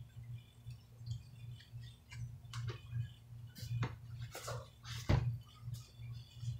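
Books and small items being handled: a scatter of light clicks and paper rustles, with one heavier thump about five seconds in as a book is set down or picked up, over a steady low hum.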